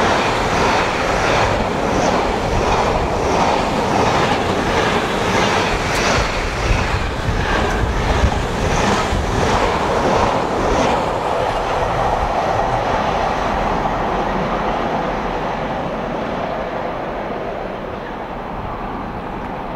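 Intermodal container freight train passing at speed: the wagons' wheels make a rhythmic clickety-clack. About halfway through the clatter ends as the last wagons go by, leaving a steady rumble that slowly fades as the train draws away.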